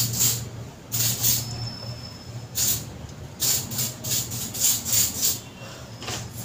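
Hair spray bottle spritzing onto hair in a series of short hissing bursts, about ten, some in quick succession in the middle.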